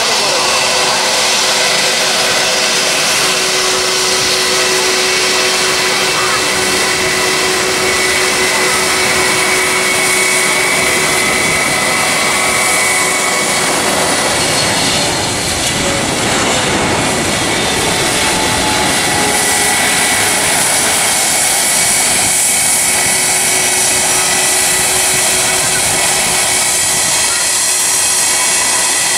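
Boeing 777 twin-engine jet on final approach with gear down, its turbofans whining steadily as it comes in. It passes low overhead about halfway through, with a swell of rumble and whining tones that fall in pitch as it goes by.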